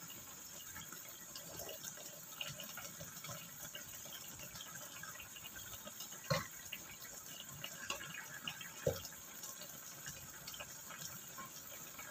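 Sauce bubbling steadily as it simmers in a wok, with a crackle of small bursting bubbles throughout. A spatula knocks against the wok twice, about six and nine seconds in.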